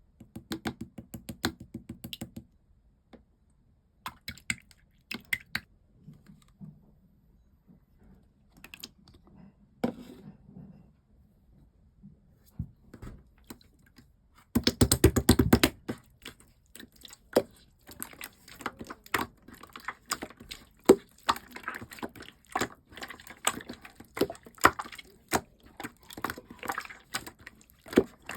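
Red clear slime being squished and poked by hand, making sticky clicks and pops. The clicks come in short flurries with pauses at first, then in a dense run about halfway through, and go on almost without a break after that.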